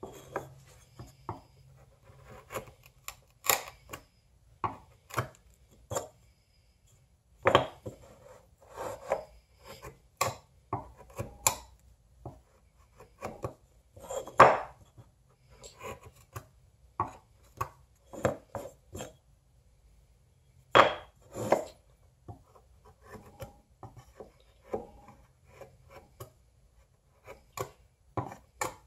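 Wood chisel paring and chopping a small tenon: irregular short cuts and scrapes in the wood with quiet pauses between them, a few louder sharp strokes among them.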